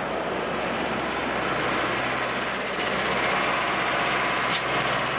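Highway traffic: a steady rush of tyres and wind, swelling a little past the middle as a box truck passes close alongside, with a brief tick near the end.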